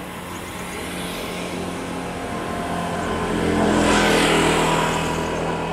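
A motor vehicle passing close by: its engine and tyre noise swell to a peak about four seconds in, then fade.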